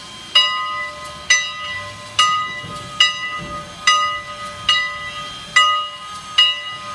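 Steam locomotive bell of Canadian National 89 ringing in a steady swing, a clear metallic stroke a little more than once a second, each ring carrying on until the next.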